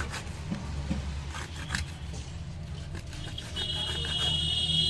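Faint scraping and ticks of metal tweezers worked along a phone's display frame, scraping away old adhesive before a new display is fitted, over a low steady hum. A steady high electronic tone starts about three and a half seconds in.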